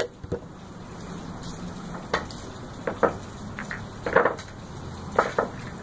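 Pool balls clacking against each other and the table as they are gathered up by hand: about eight sharp clicks at uneven intervals, some in quick pairs, with a small cluster just after the middle.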